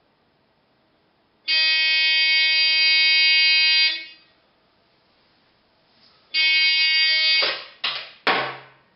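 Rotary telephone ringing with a steady, buzzy ring tone: one ring of about two and a half seconds, then a second ring that is cut short after about a second as the handset is lifted off the cradle with a few clunks.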